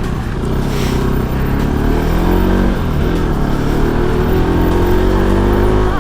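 Motorcycle engine running under way, its pitch easing down for the first couple of seconds and then climbing steadily as it revs up.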